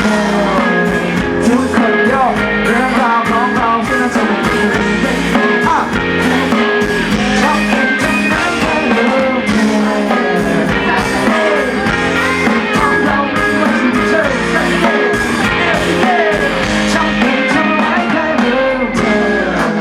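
Live rock band playing with electric guitars and drums, with singing over it, recorded from the crowd at a concert.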